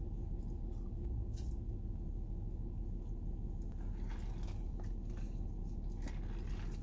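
Faint chewing and biting of food, with a few soft clicks, over a steady low hum.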